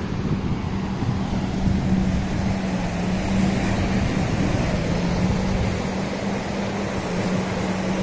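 Wind noise on the microphone with a steady low hum under it, wavering slightly in pitch, like a motor running.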